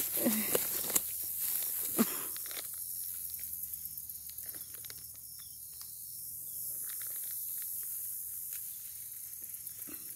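Dry grass rustling and crackling around a freshly landed largemouth bass, with a few sharp crackles in the first couple of seconds and softer rustling after. A steady high hiss runs underneath.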